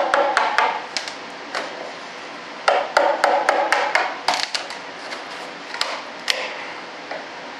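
Hammer striking a wood chisel in runs of quick, sharp taps with pauses between, chipping cured epoxy loose around a waxed wing-tip mould plug.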